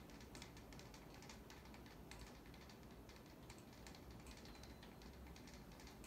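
Faint running sound of a NuTone Verandah II ceiling fan's spinner motor on high speed, with light irregular ticking.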